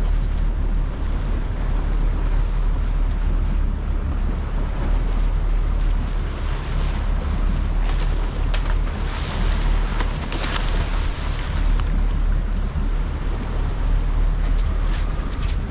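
Wind buffeting the microphone and sea noise aboard a fishing boat at sea, over a steady low rumble. Between about eight and eleven seconds in, a few brief hissing, splashy bursts stand out.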